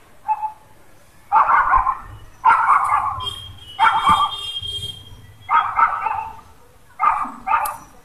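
A dog barking, about seven short barks at uneven intervals.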